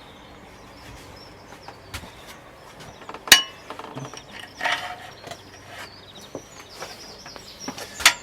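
Metal parts and hand tools being handled on a motorcycle's swing arm: scattered clicks and knocks, one sharp ringing metallic knock about three seconds in, and a short scrape. Faint birdsong can be heard behind it.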